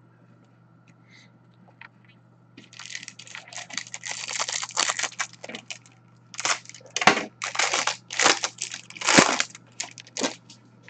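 Trading-card pack wrapper being torn open and crinkled by hand. The rustling starts about two and a half seconds in and grows into several louder crackling bursts in the second half.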